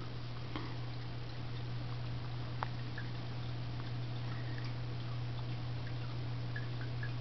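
Aquarium pump running with a steady low hum over a hiss of moving water, with small scattered ticks and pops of bubbles and one sharper click about two and a half seconds in.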